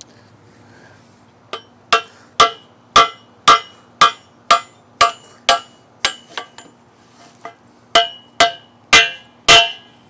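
Hammer blows on a screwdriver wedged into a metal handlebar lock, each strike a sharp metallic clank with a short ring, to pry the lock open. The blows come steadily at about two a second, pause briefly with a few lighter taps, then four more heavy blows near the end.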